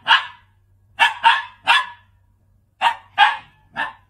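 A dog barking: about seven short, sharp barks in quick groups of two or three, with short pauses between the groups.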